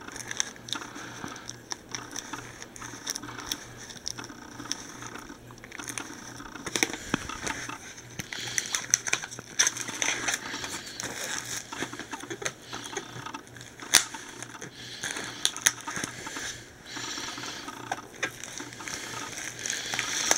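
Fingers scratching and picking at the plastic shrink wrap on a DVD case, with crinkling and irregular clicks as the wrap is torn open and peeled off, busier near the end.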